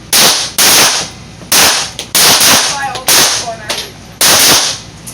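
Pistol gunshots from several shooters firing together on a timed three-round string: about seven loud shots at uneven intervals, overlapping between shooters.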